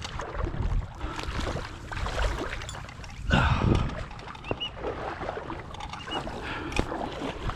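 Irregular splashing and sloshing of shallow marsh water, like someone wading through it, loudest a little past the middle, with two short faint high whistles in the second half.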